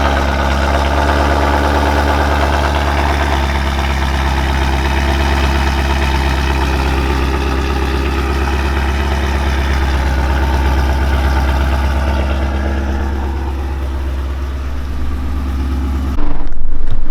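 Ford Mustang 5.0 Coyote V8 with long-tube American Racing headers idling steadily after a cold start. About a second before the end the sound switches abruptly to a loud, muffled low rumble.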